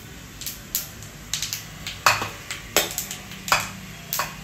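A cooking utensil knocking and clinking against cookware, about eight sharp taps spread unevenly, as boiled mashed potato is scooped into a kadhai of frying masala.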